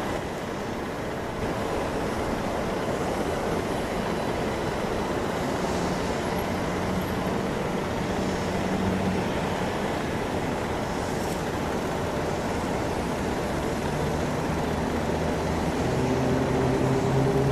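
Steady roar of an Airbus A321 airliner's jet engines on final approach, with low engine hum lines coming through and the sound growing louder near the end as the aircraft comes closer.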